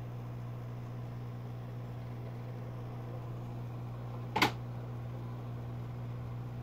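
Quick hot air rework station blowing on low airflow, a steady hum. It is heating a satellite receiver's main chip to reflow its solder. A single sharp click about four and a half seconds in.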